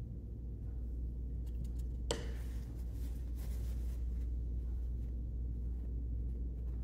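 Steady low background hum with no speech, broken by one sharp light click about two seconds in and a few faint ticks just before it.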